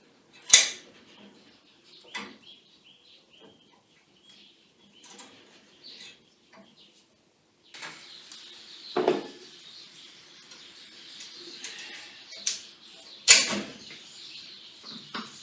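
Scattered knocks and clicks of parts and tools being handled during workshop assembly, with a faint steady hiss from about eight seconds in.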